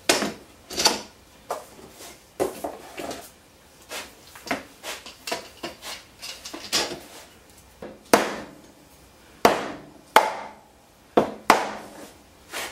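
Steel bar clamps being set and tightened on a glue-up of wooden boards: irregular knocks and clanks as the bars and sliding jaws hit the wood and the tabletop, several ringing briefly.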